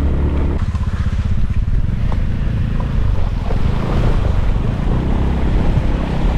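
Motorbike engine running at low speed on a rough track. Over the second half the tyres splash through a shallow stream crossing.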